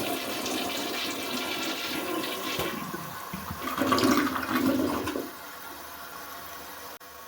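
Mansfield toilet flushing, with its flush-valve gasket freshly replaced: water rushing into the bowl, swelling about four seconds in, then dropping after about five seconds to a quieter steady hiss of running water as the tank refills.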